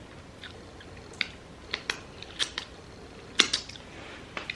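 Sharp crackling clicks of seafood-boil shells, shrimp and crab, being peeled and cracked apart by hand: about ten irregular snaps, the loudest a little past three seconds in.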